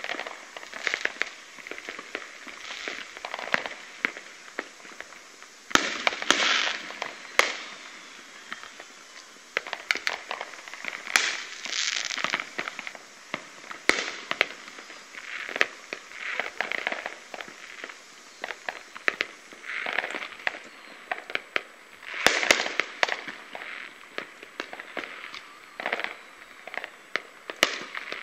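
Many distant fireworks going off one after another: sharp bangs and bursts of crackling with little low rumble. The loudest clusters come about six, twelve and twenty-two seconds in.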